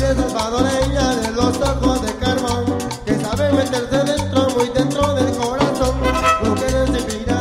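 Live Latin dance band playing: a melody line over a steady, repeating bass beat.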